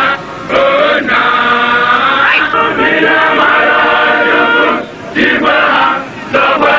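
A group of voices singing together in chorus, in phrases broken by short pauses.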